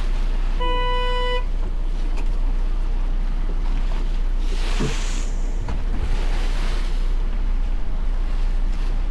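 Boat under way: a steady low rumble of the motor with wind on the microphone. About half a second in, a single short horn-like toot sounds for under a second, and around five seconds in there is a brief rushing splash of water.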